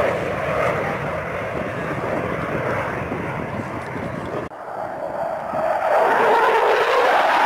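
Jet noise from a pair of Sukhoi Su-22 fighter-bombers, each with a single turbojet, flying a display pass. The sound breaks off suddenly about four and a half seconds in, then comes back louder, with its pitch dipping and rising again as the jets go by.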